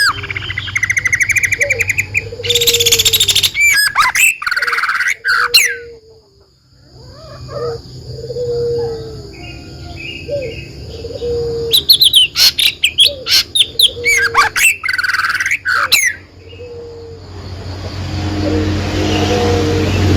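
Several birds chirping: fast trills and bursts of sharp down-sweeping whistle notes, over low notes repeated about once a second. There is a brief lull about 6 seconds in.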